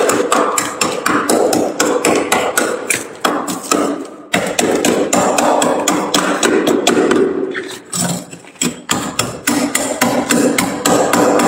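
A knife blade scraping and chipping thick built-up frost off a freezer's walls and shelf in quick repeated strokes, several a second, with two brief pauses.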